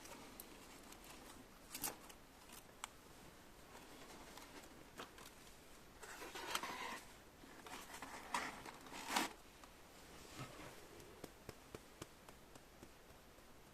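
Quiet room tone with scattered small clicks and rustling handling sounds, busiest about six to nine seconds in.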